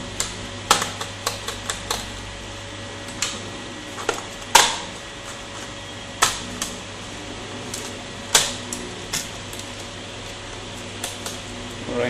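Sharp plastic clicks and snaps, a dozen or so at uneven intervals, the loudest about halfway through, as the bottom access panel of a Dell Inspiron 5520 laptop is pried off its clips and lifted away.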